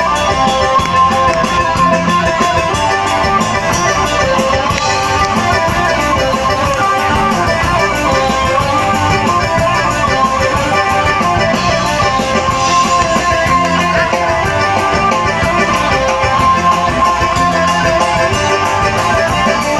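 Live band music played through a stage PA: electric guitars over a drum kit, steady and loud throughout.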